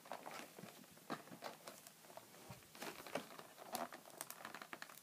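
Fingers picking and scratching at the stiff cardboard door of an advent calendar that is hard to open: faint, irregular scratches, taps and crinkles.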